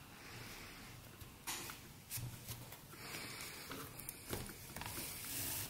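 Faint rustling and scraping of hand sewing: a needle and cotton cord thread drawn through the holes of a bag base insert and the crocheted fabric, with a few soft clicks of handling.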